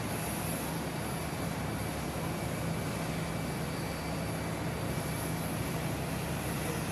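Aircraft engines running steadily: an even, unchanging noise with a constant low hum underneath.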